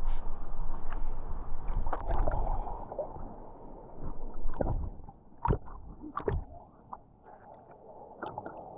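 Rushing river water, loudest in the first three seconds and then fainter, with several sharp knocks in the middle.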